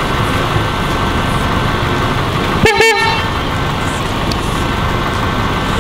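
Steady running noise of cars idling in traffic, with one short car-horn toot about halfway through.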